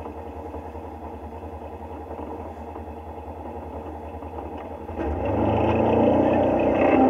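Side-by-side UTV engine idling steadily, then throttled up about five seconds in and running noticeably louder under load as the machine pulls onto the rocky climb.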